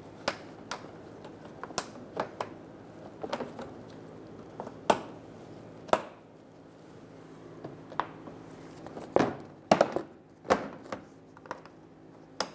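Honda Pilot's plastic engine under tray being pushed and hooked into place by hand: irregular sharp clicks and knocks of hard plastic, with several in quick succession about nine to ten seconds in.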